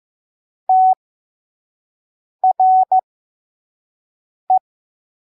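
Morse code sent as a single steady mid-pitched beep with long gaps between letters: one dah, then dit-dah-dit, then one dit, spelling T, R, E from the word 'strength'.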